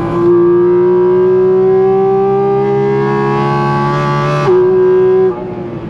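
Porsche Cayman GT4 RS's 4.0-litre flat-six at high revs under throttle, heard from inside the cabin: a loud, high wail that climbs slowly in pitch for about four seconds. It breaks briefly about four and a half seconds in, then drops in level near the end.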